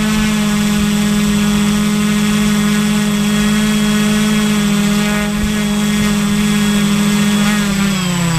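Motors and propellers of a small radio-controlled aircraft, heard from the camera it carries, holding a steady droning hum in flight. Near the end the pitch falls as the throttle is eased off to bring it down.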